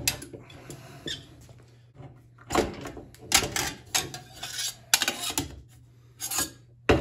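Rolled sheet-metal cylinder squeaking, scraping and clanking against the steel rollers of a hand slip roll as it is slid off the machine. A run of sharp knocks and scrapes starts about two and a half seconds in.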